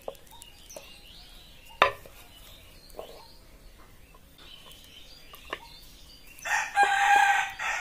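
A rooster crows loudly near the end, one long pitched call. Before it, a few sharp knocks of a wooden rolling pin against a wooden board as puri dough is rolled out, the loudest about two seconds in.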